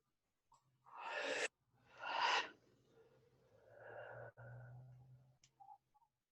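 A woman breathing out hard twice in quick succession, as in a breathwork exhale, followed by a softer, longer voiced sigh.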